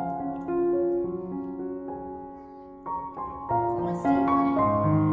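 Background piano music, a melody of separate notes over held lower notes.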